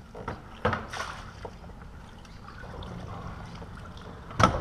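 Water splashing and lapping at the hull of a Hobie Pro Angler 14 kayak while a hooked crappie is brought to the landing net, with a few sharp knocks, the loudest near the end.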